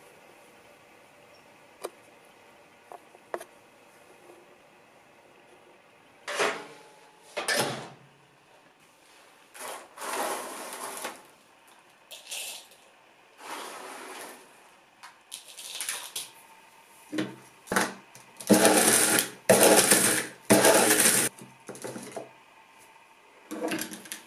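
A few knife chops on a wooden cutting board, then an electric blade coffee grinder run in about ten short pulses by pressing its lid, grinding roasted dandelion root pieces; the longest and loudest runs come a few seconds before the end.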